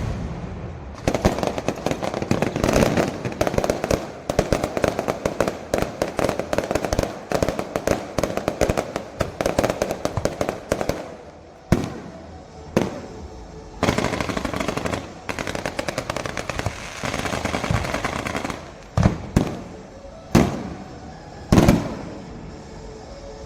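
Aerial fireworks going off: about ten seconds of dense rapid crackling, then two separate bangs, another stretch of crackling, and three single bangs near the end.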